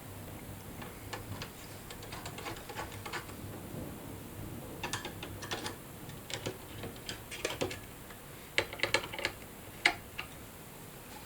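Irregular small clicks and taps of hard computer parts being handled and fitted, with a cluster of sharper clicks about nine seconds in.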